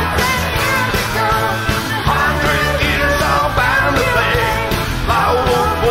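Live rock 'n' roll band playing with a singing voice over it, heard as the mixing-desk feed rather than the room sound.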